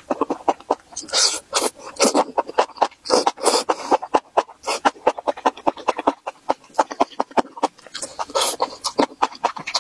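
Close-miked chewing and slurping of spicy, crunchy enoki mushroom strands: rapid wet crunching and mouth clicks, with a few longer slurps as strands are sucked in.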